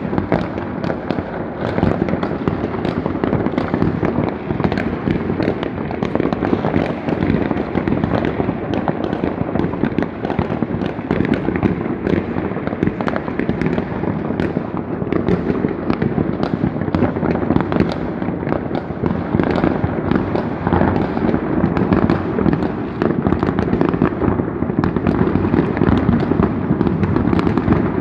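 Many consumer fireworks and rockets set off by private people across a neighbourhood at once: a continuous, dense crackle of overlapping bangs with no break.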